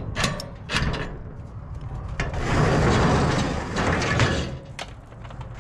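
A padlock on a metal roll-up storage unit door being unlocked with a few sharp metallic clicks, then the roll-up door rattling for about two seconds as it is pushed up.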